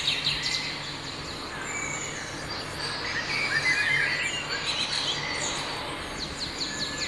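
Several birds chirping and singing in short rising and falling notes and quick trills, over a steady background hiss and a faint low hum.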